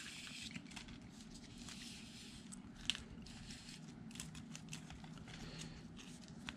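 Faint rustling and crinkling of a wire being pulled through a car wiring harness, with scattered light clicks and one sharper tick about three seconds in.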